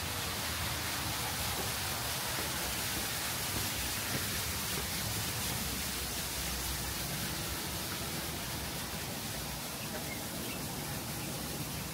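Steady outdoor background noise: an even, hiss-like rush with no distinct events.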